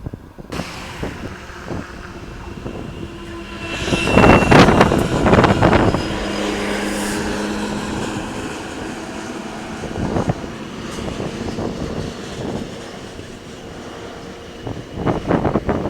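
Train rolling by on the rails, a steady rumble broken by loud bursts of wheel clatter about four seconds in and again near the end.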